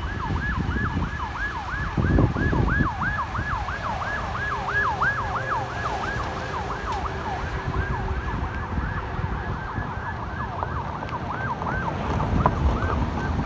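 Emergency vehicle siren sounding in a fast yelp, about three rapid pitch sweeps a second, fading out near the end, over a low rumble of traffic and wind.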